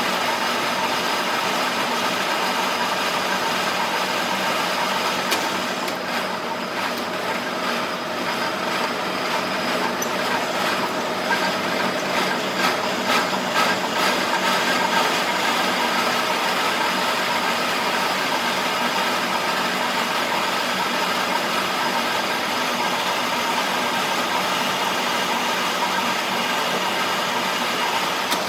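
DIP 500 heavy engine lathe running under a cut on a large metal workpiece: a steady machine drone with several steady gear tones, with a faint crackle for a few seconds about a quarter of the way in.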